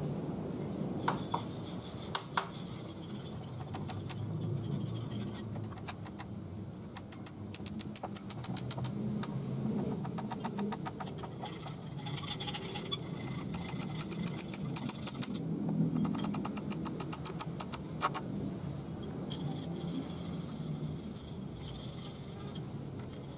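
A few sharp wooden knocks about two seconds in as the wooden box is handled on its stand, then two runs of rapid, evenly spaced clicking from screws being driven by hand into the box's wooden frame. A steady low traffic hum runs underneath.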